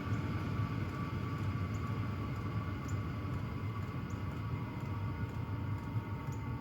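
Hcalory portable diesel heater running with a steady blower and combustion hum, its fan whine dropping slightly in pitch in the second half as it ramps down toward its lowest setting. Faint regular ticks come about once a second, typical of the heater's fuel dosing pump.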